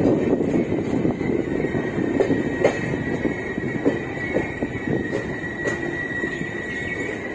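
Express train's passenger coaches rolling slowly into a station, heard from aboard: a steady rumble with wheels clicking now and then over rail joints and a thin, steady high squeal from the wheels, as the train arrives at the platform.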